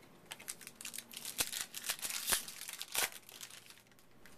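Trading-card pack wrapper crinkling and tearing as it is ripped open by hand: a dense run of crackles with a few louder rips, dying down about three seconds in.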